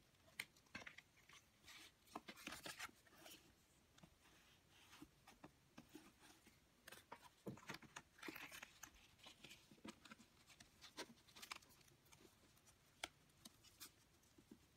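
Faint, irregular rustling of paper with light taps and clicks, as paper pieces are handled and pushed into place.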